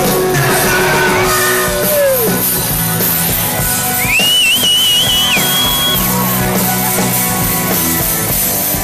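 Live rock band playing loudly through a concert PA, heard from within the crowd, in an instrumental stretch between sung lines. About four seconds in, a high wavering line rises and holds for about two seconds before dropping away.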